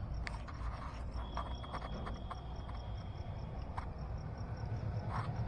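Crickets chirping in a rapid, even pulse over a low steady rumble, with a few faint clicks.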